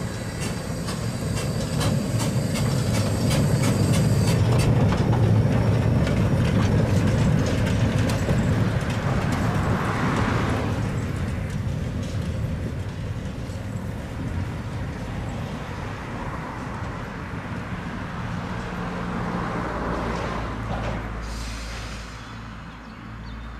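Small narrow-gauge steam tank locomotive running light, hissing steam from its cylinders as it passes, with a low rumble of the running gear on the rails. The sound is loudest in the first half, then fades as the engine moves away, with brief swells of steam about halfway through and again near the end.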